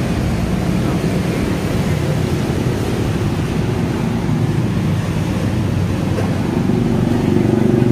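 Steady street traffic noise from passing vehicles, with a nearby engine hum growing louder near the end.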